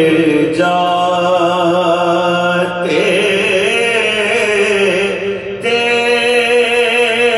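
Men's voices chanting a soz lament without instruments: a lead male voice sings long, wavering held notes in phrases, with a brief break about five and a half seconds in. Accompanying voices hold a steady note beneath.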